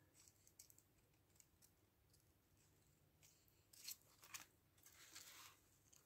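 Near silence, with a few faint dry rustles and ticks of paper and card being handled, mostly in the second half; the longest rustle comes about five seconds in.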